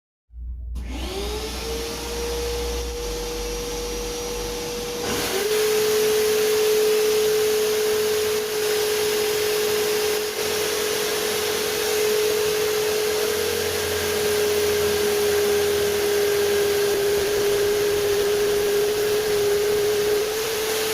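Electric drill motor spinning a homemade sanding drum: it starts up and winds up to speed within about a second, then about five seconds in its whine drops slightly in pitch and a louder rasping hiss joins in, as the drum comes under load sanding wood, and it runs on steadily.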